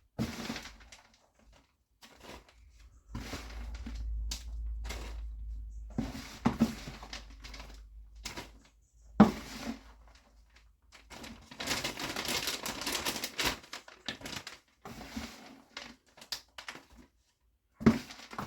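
Damp hardwood sawdust and bran mix being scooped by hand into a mushroom grow bag: irregular rustling and crinkling of the bag with scattered knocks, the sharpest about nine seconds in.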